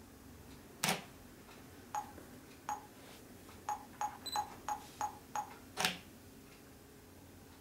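Nikon DSLR's shutter firing twice, about five seconds apart, as the phone remote runs timed exposures. Between the two releases comes a run of short, faintly pitched ticks that quicken towards the second shot.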